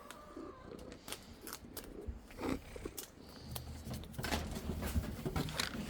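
Handling of a cat food packet as it is fumbled with one hand: scattered clicks and short crinkling rustles, growing busier in the second half.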